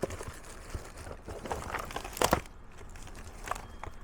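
Hands rummaging through a box of small objects: crinkling and rustling of wrappers and packaging with scattered light clicks, and one sharper knock a little past two seconds in.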